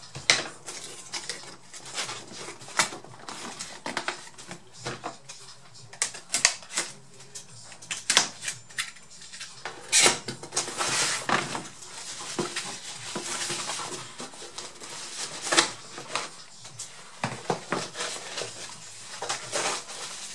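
Cardboard box being handled and opened by hand: irregular knocks, taps and scrapes of cardboard, with stretches of paper rustling as the packing sheet inside is moved.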